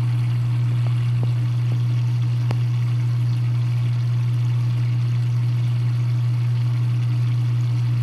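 Dishwasher drain pump humming steadily, a low vibrating drone while no water drains out of it. A couple of faint ticks about one and two and a half seconds in.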